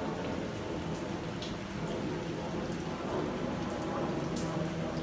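Steady rain falling, with a few louder individual drops standing out.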